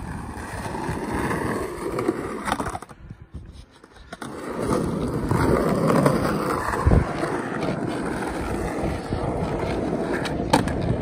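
Skateboard wheels rolling over rough asphalt: a steady gritty rumble that drops away briefly about three seconds in, with a few sharp knocks later on.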